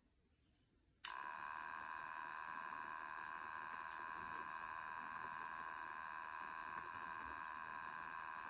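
Click of an inline power switch about a second in, then the Electric Eel Wheel Nano 2.0 electric spinning wheel's motor and flyer running with a steady, high whine of several tones.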